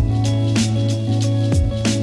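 Background music: a beat comes in right at the start, with deep booming kick drums, sharp percussion hits and a held bass note.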